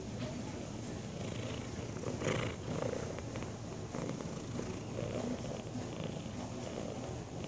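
Tabby cat purring steadily, close up against the microphone, with a brief burst of noise about two seconds in.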